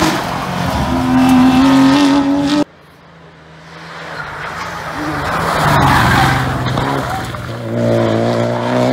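A Porsche 911 rally car's flat-six accelerating hard past at high revs, its engine note climbing. It cuts off abruptly about two and a half seconds in, and a Renault Clio rally car is then heard approaching, getting steadily louder, with its engine revving again near the end.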